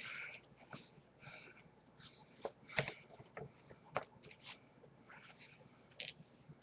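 Faint scattered taps, clicks and rustles of cardboard box-set packaging and paper items being handled and fitted back into the box.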